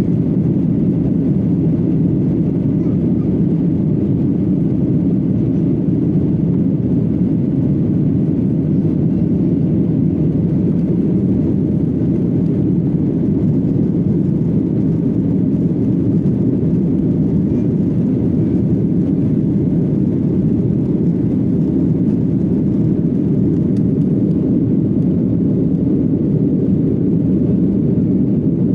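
Jet airliner cabin noise: a steady low rumble of engines and airflow with no change in pitch or loudness.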